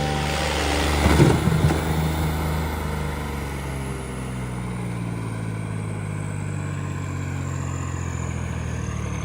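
Tractor engine running hard under heavy load, with a loud rough surge about a second in, then a steady drone.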